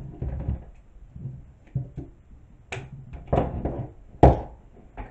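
Rope being wrapped around a wreath of wooden clothespins on a wire frame: a few scattered knocks and rustles as the rope and clothespins are handled, the loudest about four seconds in.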